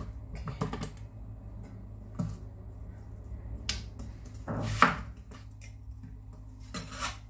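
Chinese cleaver cutting winter melon on a bamboo cutting board: a few separate knocks of the blade striking the board, the loudest about five seconds in, over a faint steady low hum.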